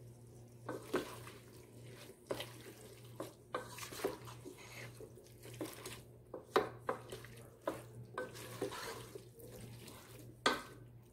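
Wooden spoon stirring a wet mix of vegetables in a metal cooking pot: irregular scrapes and knocks of the spoon against the pot, about one or two a second, over the squish of the food being turned.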